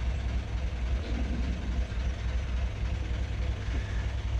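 Narrowboat diesel engine running steadily at low revs with a low, even throb.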